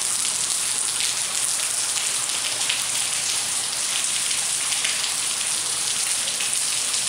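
Rainwater leaking through a subway station ceiling, dozens of thin streams and drips splashing onto the wet concrete platform in a steady, dense patter. The station is leaking during a heavy downpour.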